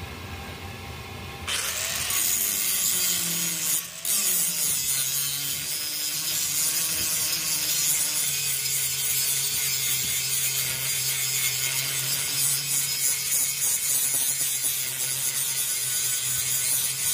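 Electric grinder running, then biting into bearing steel about a second and a half in. A loud grinding hiss follows, and the motor's pitch sags under the load before settling.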